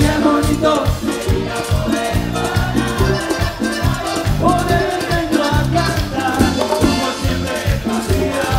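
A live Latin dance band playing, with a steady, regular bass pulse under melody lines and percussion.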